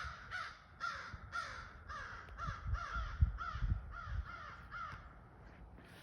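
Crows cawing over and over, a run of short hoarse caws about two a second that grow fainter and stop near the end. A few low thumps sound under the caws midway.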